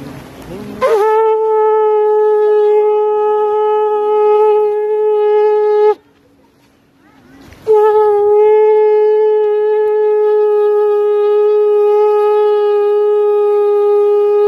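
Conch shell (shankh) blown in two long, steady blasts of a single pitch, the first about five seconds long and the second about seven, with a short pause between them.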